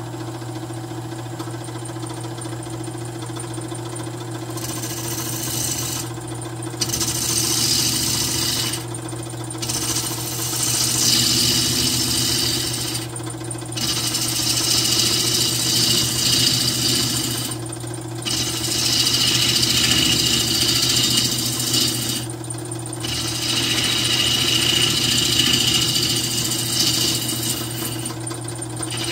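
Wood lathe motor running with a steady hum while a gouge cuts the spinning face of a cherry-burl plate blank. The cutting is a rushing, shaving noise that starts about four seconds in and comes in six passes with short breaks between them.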